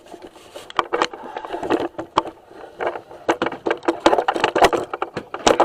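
Irregular clicks and knocks of hand tools and metal brake parts being handled while a truck's brake caliper is taken off, thickest in the second half.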